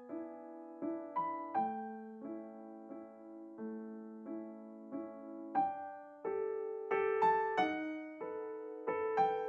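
Solo piano music with a gentle melody: single notes and chords struck about every half second, each fading before the next.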